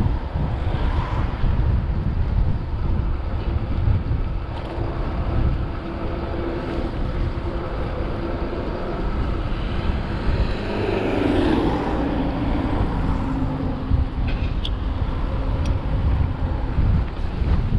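Wind rumbling on the microphone of a camera mounted on a moving bicycle, along with road noise. A motor vehicle passes about two-thirds of the way through, its pitch dropping as it goes by.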